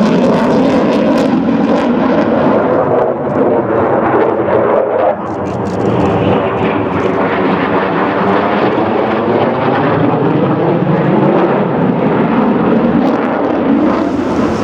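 Military fast jet's engines running loud during a flying display pass, a heavy jet noise with a slowly sweeping, phasing tone as the aircraft moves overhead.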